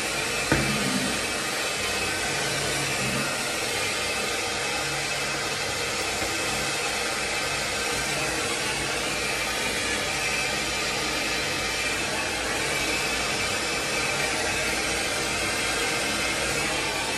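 Plumbing torch flame hissing steadily while it heats a copper pipe to sweat a solder joint at a brass ball valve.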